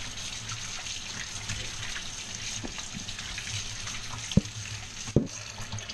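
Kitchen sink faucet running steadily while hands are rubbed under the stream to wash off raw bacon grease. Two short sharp knocks come a little over four and five seconds in.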